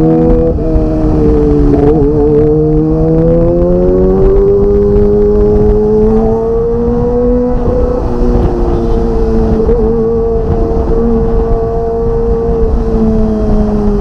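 Kawasaki ZX-25R's 249 cc inline-four running high in the revs through an aftermarket Magna exhaust, heard while riding. The pitch dips briefly about half a second and two seconds in, then slowly climbs and eases off, over a low wind rumble.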